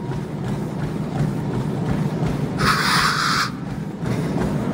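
Treadmill running at about 12 km/h with someone running on it, a steady low rumble throughout; a brief hiss about three seconds in.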